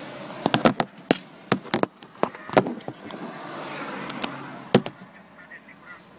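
Handling noise from a phone held as a camera and being jostled: a string of sharp knocks and clicks over the first five seconds, the loudest about two and a half seconds in, over a faint hiss.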